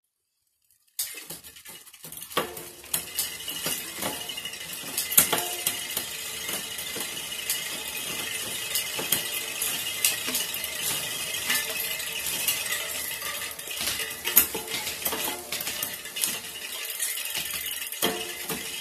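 Bicycle drivetrain turning, starting about a second in: an unlubricated chain running over the sprockets and through a Shimano RD-M7000 rear derailleur with its clutch switched on, with a steady metallic clinking and clicks as the gears are shifted.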